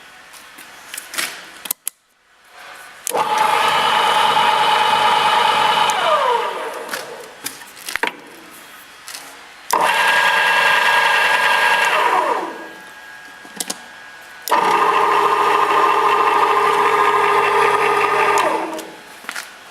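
MEP 350 cold saw for metal started three times. Each time it runs steadily for a few seconds, then is switched off and winds down with a falling pitch. There are scattered clicks and knocks between the runs.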